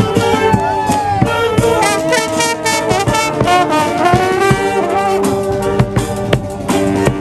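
Street brass band playing: horns, with some notes sliding up and down, over steady drum beats.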